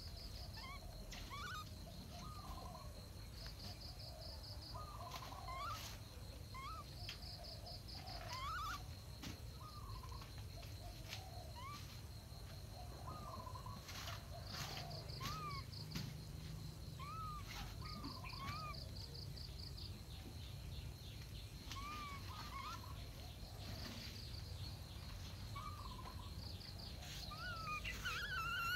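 Short chirping animal calls, each a quick rise and fall, repeated every second or two, over a steady high whine with rapid pulsing trills every few seconds and a low rumble of wind or handling.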